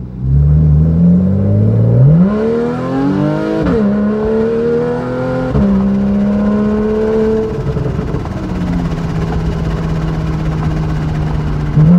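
Porsche 911 (991.1 Carrera) 3.4-litre flat-six through a Soul Performance valved exhaust with the valves open, accelerating hard. The note climbs in pitch, drops sharply at an upshift about four seconds in, pulls on, then eases to a steady lower cruising note about eight seconds in.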